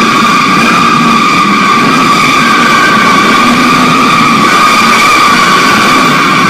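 AC Cobra drifting: tyres screeching in one long, steady squeal, with the engine running underneath.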